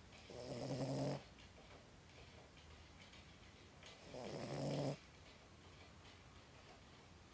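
A sleeping pet snoring: two snores about four seconds apart, each about a second long with a low pitched rumble and a breathy hiss on top, cutting off sharply.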